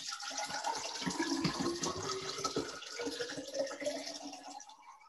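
Water poured from a glass bottle into a tall cylindrical vase, the sound rising in pitch as the vase fills and tapering off near the end.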